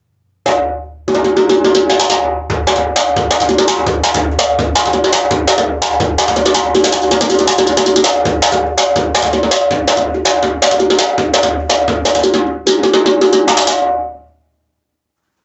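Hand-played djembe with a water buffalo calfskin head, played in a fast, continuous rhythm that mixes deep bass notes with bright, sharp strokes. After one opening stroke it plays on without pause and stops abruptly about a second before the end.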